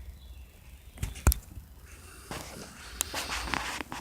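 A few sharp knocks and clicks, the loudest about a second in, with rustling or shuffling noise through the second half.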